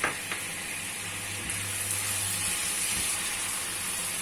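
Liquid sizzling and hissing steadily in a hot pan, the sign of water just poured into a hot sauce of oyster sauce and seasonings. A brief knock sounds right at the start.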